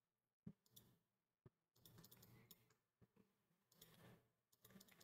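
Near silence, with two faint computer mouse clicks, about half a second in and a second later.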